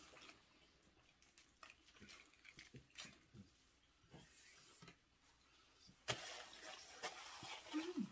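Near silence with faint crunching and clicking of chewing on chocolate-wafer candy, one sharper click about six seconds in, and a short falling hum near the end.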